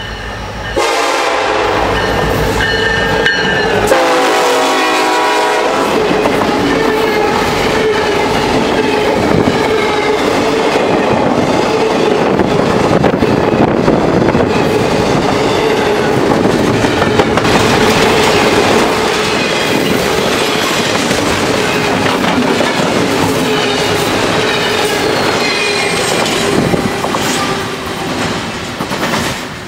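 Norfolk Southern SD70ACe diesel locomotive sounding its horn from about a second in, the chord dropping in pitch as it passes, then a double-stack intermodal freight train rolling by close up with a steady wheel clatter and a steady whine, fading near the end as the last car goes by.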